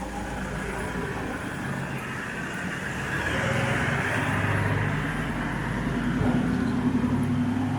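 Road traffic: a motor vehicle's engine hum with tyre noise, growing louder about three seconds in as it passes close by.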